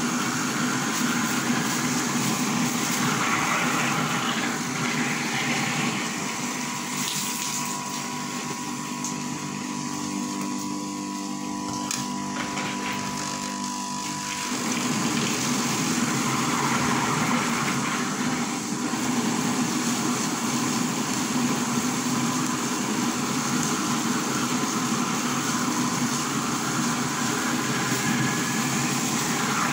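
Electric soybean milk grinding machine running steadily, grinding soaked soybeans with water into soy milk slurry. Its hum eases and thins about six seconds in, then comes back fuller around the middle.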